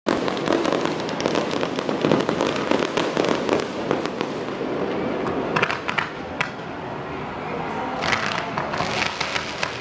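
Fireworks going off: a dense, rapid run of sharp pops for the first half, then shorter clusters of pops about halfway through and again near the end.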